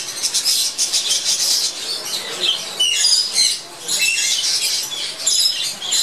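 A flock of budgerigars in an aviary chattering, with many quick overlapping chirps, warbles and squawks.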